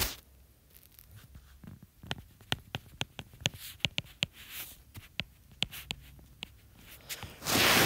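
Stylus nib tapping and clicking on a tablet's glass screen during handwriting: an uneven run of many short sharp ticks, followed near the end by a short louder rush of noise.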